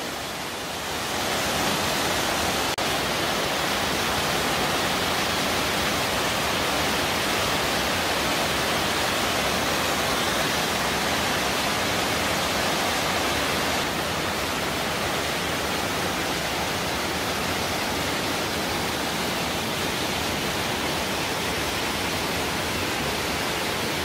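Underground cave waterfall: a steady rush of water pouring from an opening in the rock wall into a pool, a little quieter from about 14 seconds in.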